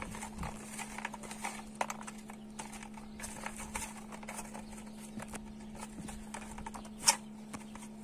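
Dried apricot halves being gathered by hand on a large metal tray: a run of light clicks and scrapes as the leathery pieces slide and knock on the metal, with one sharper click about seven seconds in. A faint steady hum lies underneath.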